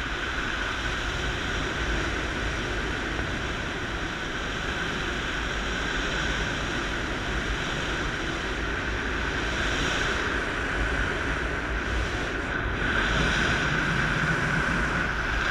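Steady rush of airflow over the camera microphone of a paraglider in flight, getting a little louder near the end.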